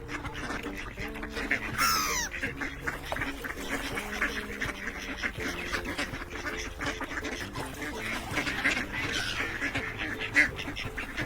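Ducks quacking and chattering on the water, with a quick falling whistle-like call about two seconds in.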